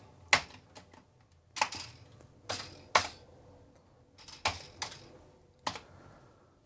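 Commodore 64 keys clacking as a short line is typed: about eight separate key presses at a slow, uneven pace. The owner calls the keyboard terrible and in need of fixing.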